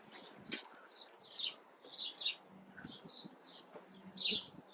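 Small birds chirping: short high chirps repeated about twice a second.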